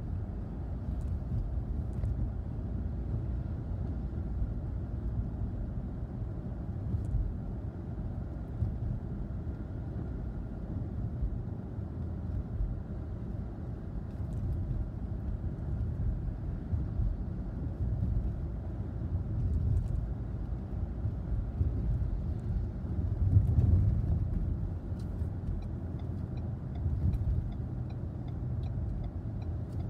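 Steady low rumble of a car's engine and tyres heard from inside the cabin while driving on wet pavement, swelling slightly now and then, with a few faint ticks near the end.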